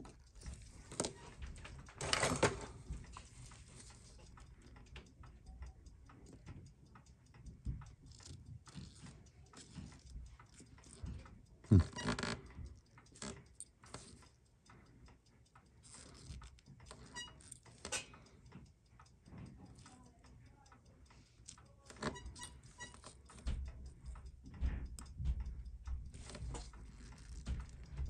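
Small, irregular clicks and taps of steel tweezers working parts of a Seiko 6217 watch movement clamped in its metal holder, with a couple of louder knocks about two seconds in and near the middle, and soft low handling thumps near the end.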